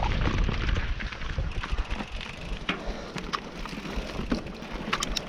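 Mountain bike rolling over a rough trail: tyre noise with scattered clicks and knocks from the bike and trail, under a low rumble of wind on the microphone.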